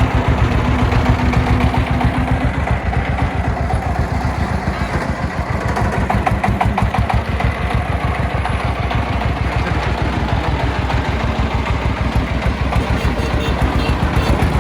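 Diesel engine running steadily with a fast, even chugging beat, and brief clatters about six to seven seconds in.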